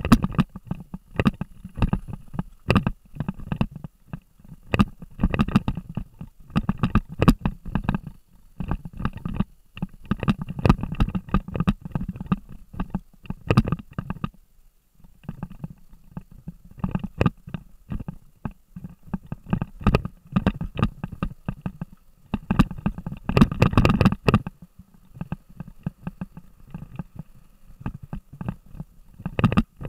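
Action camera jolted hard over a rough dirt trail: an irregular stream of knocks and rattles over a low rumble. It eases off briefly midway and gets loudest and densest for about a second near the end.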